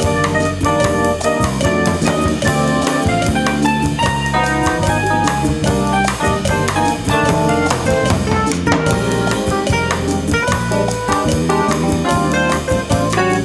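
Mapex drum kit played in a busy jazz groove along with a recorded band whose horns hold sustained chords over the drums.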